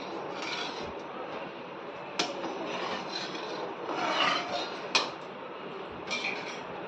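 Slotted metal spatula scraping and stirring sugar and water in a steel kadhai, a grainy rasping, with two sharp metal-on-metal clacks, about two seconds in and about five seconds in.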